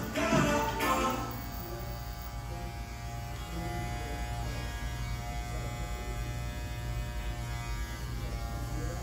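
Electric hair clippers running with a steady buzz, under background music that carries singing for about the first second.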